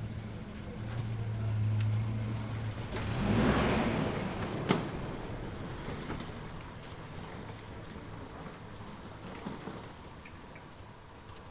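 A car passes close by: a steady low engine hum, then a rush of engine and tyre noise about three seconds in that fades away. A single sharp click comes just after the loudest part.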